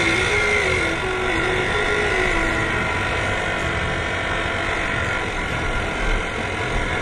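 Motorcycle engine running while riding, its pitch wavering up and down a little in the first couple of seconds.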